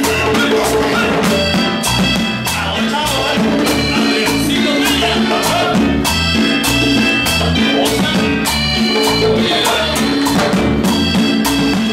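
Live Latin dance band playing loud salsa-style music: timbales struck with sticks and hand percussion over a steady bass beat.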